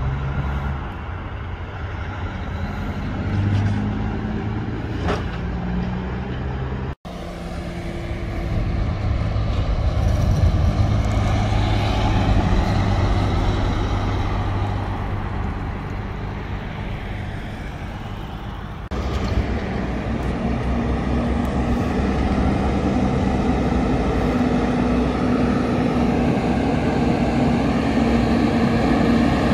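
Heavy diesel road-train trucks running and passing, engines working under load, in three spliced clips with abrupt cuts about 7 and 19 seconds in. In the last clip a cab-over prime mover pulling out with its trailers, its engine note climbing steadily as it accelerates.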